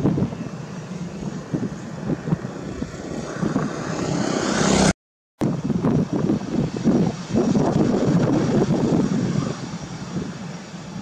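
Airbus A319 jet engines running as the airliner rolls along the runway: an uneven rumbling roar whose hiss grows brighter toward the middle. The sound cuts out for a split second about halfway through, then the roar carries on.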